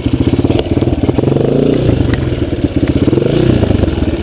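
250cc scrambler motorcycle engine running at low speed with a steady pulsing beat. It revs up and back down a couple of times in the middle.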